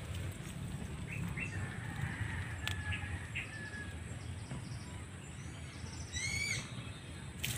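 Birds chirping: a few short chirps in the first half, then a quick run of four or five curved chirps about six seconds in, over a low rumble.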